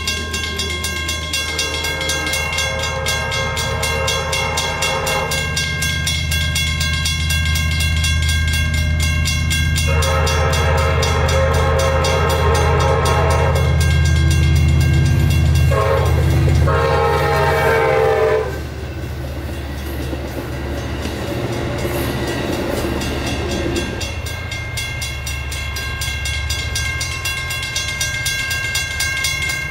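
An Amtrak train's horn, on an EMD F59PHI locomotive, sounds the grade-crossing signal of two long blasts, a short one and a long one, over the steady ringing of the crossing's WCH mechanical bells. A low rumble of the locomotive and cars passing swells under the horn and fades a few seconds after the last blast, while the bells keep ringing.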